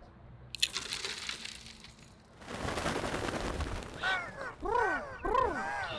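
A rush of flapping, rustling noise, then a run of harsh squawking bird calls, each a short rising-then-falling cry, several a second.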